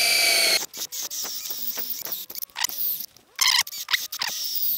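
Cordless drill boring holes into a green hardwood log thought to be ironbark. It runs steadily and stops about half a second in, then the trigger is squeezed in a few short bursts, with gliding squeaky tones in between.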